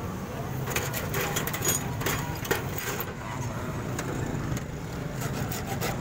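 A thin hand file scraping on a metal key blade in short, irregular strokes, over a steady low hum.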